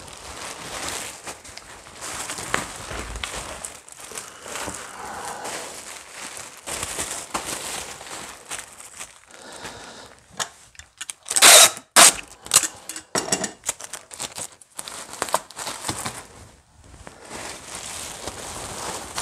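Plastic bubble wrap crinkling and rustling as it is handled and wrapped around a cabinet, with a cluster of loud, sharp crackles about twelve seconds in.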